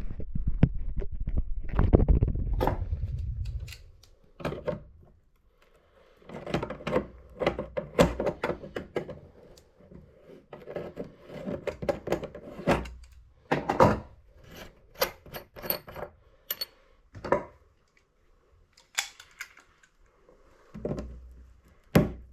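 Hand tools clicking, clinking and knocking against metal fittings while an old Valley tub/shower valve cartridge is worked out, irregular sharp knocks after a loud rumbling scrape in the first few seconds.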